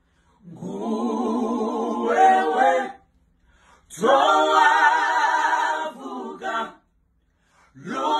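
Small a cappella gospel vocal group singing held chords in close harmony with vibrato. The chords come in three phrases, starting about half a second in, about four seconds in and near the end, with short silent breaths between them.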